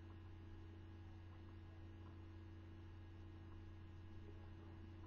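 Near silence: room tone with a low, steady hum.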